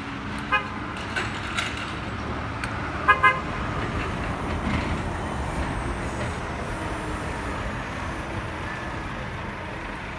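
Street traffic with an articulated city bus passing close by, its engine and tyres making a steady rumble. A vehicle horn gives one short toot about half a second in, then two quick toots about three seconds in, the loudest sounds here.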